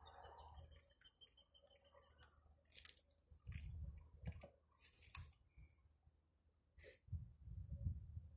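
Near silence: faint low rumbles of wind on the microphone near the middle and end, a few soft clicks, and a faint rapid high peeping in the first two seconds.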